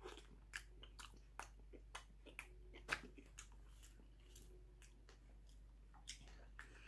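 Faint chewing of a mouthful of instant curry rice: a string of soft, irregular mouth clicks and smacks, one louder about halfway through.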